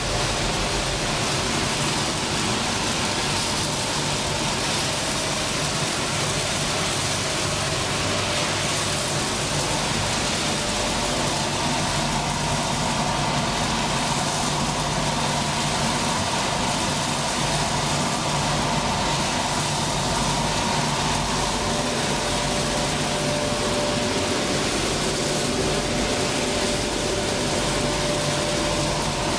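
Machinery of a dog food production line running steadily: an even mechanical noise with a constant motor and fan hum. A higher steady tone joins about two-thirds of the way through.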